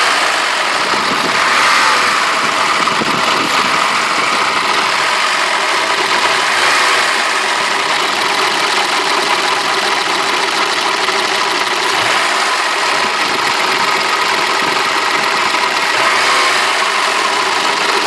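BMW M20B27 2.7-litre straight-six engine running steadily at around idle with a knock that the owner points out as the fault, its loudness swelling slightly every few seconds.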